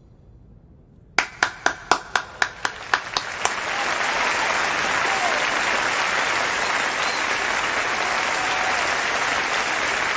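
One person clapping, about ten sharp claps at roughly four a second starting a second in, then a whole audience joins in steady applause.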